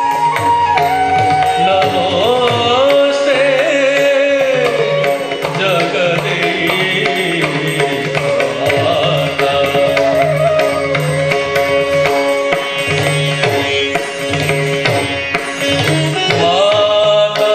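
Odissi dance music: a melody with sliding pitches over a repeating hand-drum pattern.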